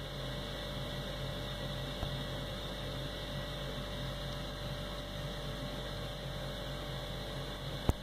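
IDM Energie Terra 17S/21W ground source heat pump running: a steady, very quiet hum with an even hiss, broken by a faint click about two seconds in and another near the end.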